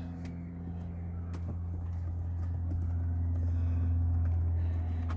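A steady low hum that grows louder through the middle and then eases off, with a few faint clicks from a silicone insert being pressed into the plastic centre-console trim.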